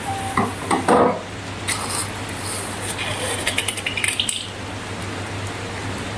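Slime-making utensils and containers being handled: a run of short clicks, clatters and scrapes for about the first four seconds, then only a steady hiss with a low hum.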